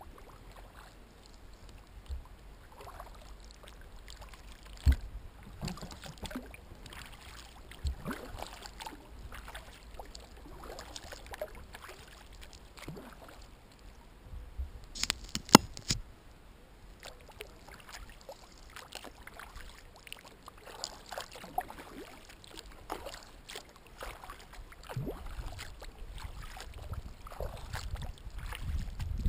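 Kayak paddling: the paddle blades dipping and dripping, with water trickling and lapping at the hull in an irregular patter. A few sharp knocks stand out, one about five seconds in and a cluster of clicks around the middle.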